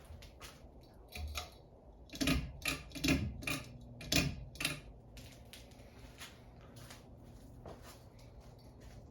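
Harbor Breeze Asheville ceiling fan running with a faint low motor hum, over which comes a run of irregular clicks and ticks, loudest and densest a couple of seconds in.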